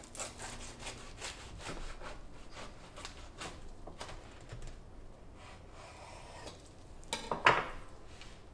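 A chef's knife sawing back and forth through toasted bread on a wooden cutting board, a run of rasping, crunching strokes. A brief, louder knock comes near the end.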